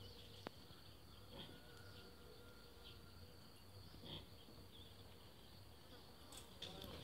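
Near silence: a faint steady high-pitched hum in the background, with one sharp click about half a second in.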